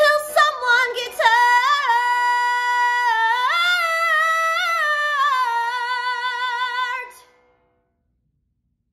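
A woman sings in musical-theatre style, unaccompanied: a few quick notes, then a long held note. The note steps up in pitch partway through, drops back, and ends with vibrato before stopping abruptly about seven seconds in.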